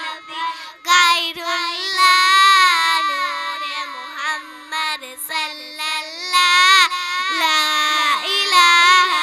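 A high voice singing a naat unaccompanied, in long, ornamented held notes with short breaks for breath.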